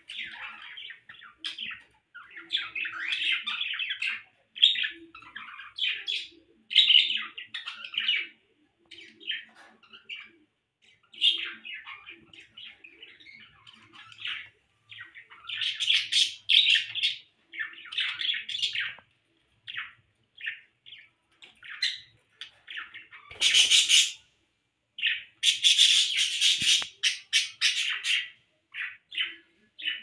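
Pet budgerigars chattering in quick, irregular runs of chirps, with a few louder calls about three-quarters of the way through.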